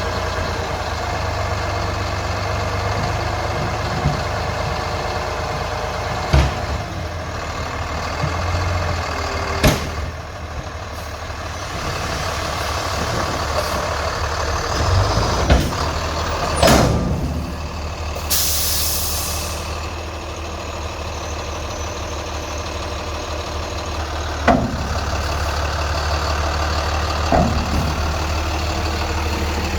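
A vehicle engine idling steadily, with scattered knocks and clanks and a short burst of hissing air about eighteen seconds in.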